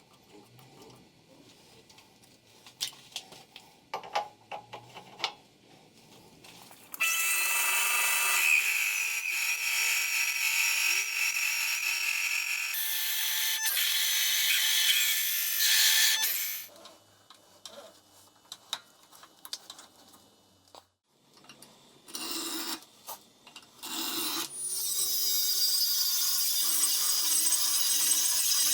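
A power tool working on material in two long runs, about nine seconds and then about four seconds, with short bursts between them and light handling clicks before the first run.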